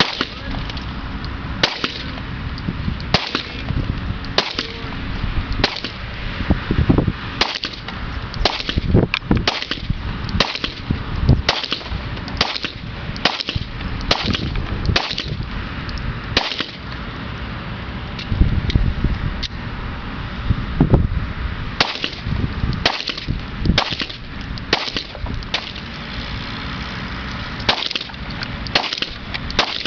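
Repeated 9mm pistol shots from a line of several shooters firing together, coming at irregular intervals and sometimes in quick pairs, heard from the target end of the range. A steady low background noise runs underneath.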